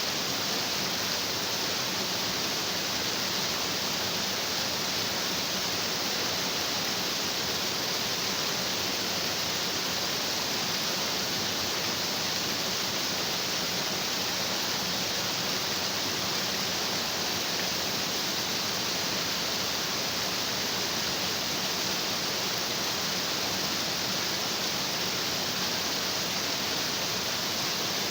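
Stream water rushing and splashing over rocks, a steady, unbroken hiss.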